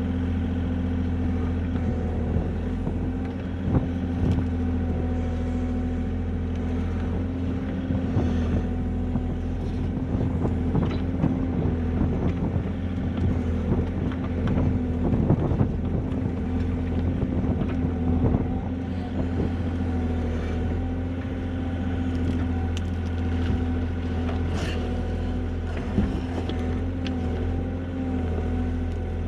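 Tracked excavator's diesel engine running steadily under digging load, heard from inside the cab, with the working noise of its hydraulics and irregular knocks and clunks as the bucket and boom dig out a ditch.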